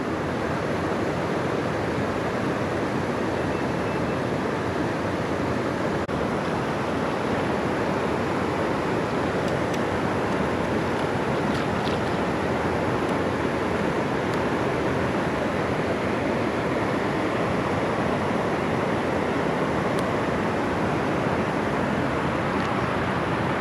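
Steady rushing of flowing water, an even, unbroken noise.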